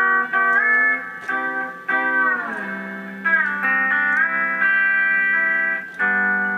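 A plucked stringed instrument playing a riff: notes joined by gliding slides, in the manner of slide guitar.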